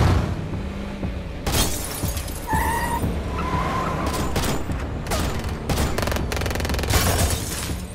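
Gunshots fired from vehicles in a movie car chase: a single shot about a second and a half in, then a cluster of shots with a rapid burst near the end. Engine rumble and film score run beneath.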